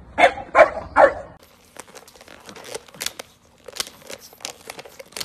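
A French bulldog barks three times in quick succession. Then a French bulldog puppy licks and nibbles at a plastic drink cup's lid, making scattered crinkling and clicking of plastic.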